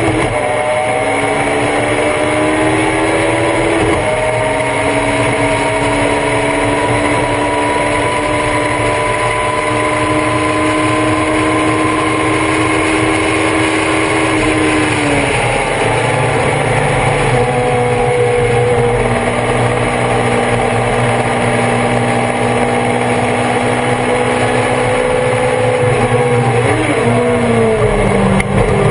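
Thunder Roadster race car engine heard on board at sustained high revs: the pitch drops with shifts about a second in and at about four seconds, climbs slowly, then falls off around fifteen seconds in as the driver lifts. Near the end the revs drop again with a quick blip, as on a downshift into a corner.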